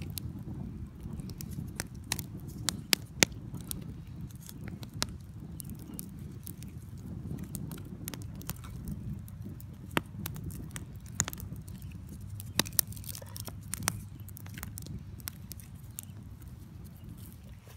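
Wood fire in a Dakota fire hole crackling, with irregular sharp pops over a low steady rush, as it burns up after being fed fresh wood.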